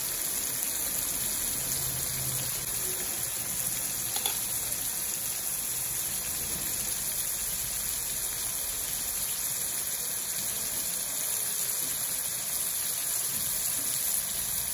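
Masala-coated green mussels sizzling as they shallow-fry in oil in a kadai: a steady hiss of bubbling oil, with one small pop about four seconds in. The mussels are mid-fry, just starting to change colour.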